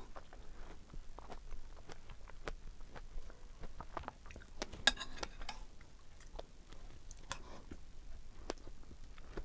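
Close-up mouth sounds of chewing fresh strawberries: irregular wet clicks and lip smacks, with one sharper click about five seconds in.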